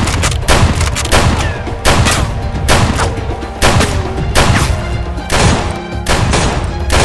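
Gunshot sound effects for Nerf blasters firing: about ten single shots, one every half to three-quarters of a second, over background music.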